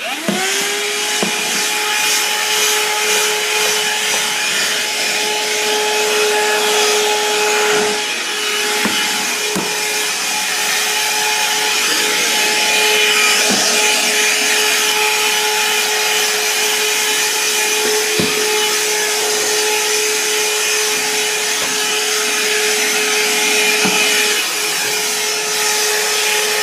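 Shark 15.6-volt cordless handheld vacuum switching on, spinning up quickly and then running steadily with a high motor whine and airflow hiss while vacuuming stairs. A few short knocks come from the nozzle bumping the steps.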